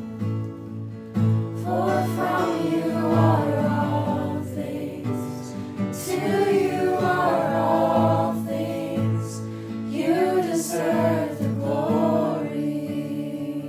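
Worship song: voices sing three phrases over a steady sustained instrumental backing. The singing fades out near the end.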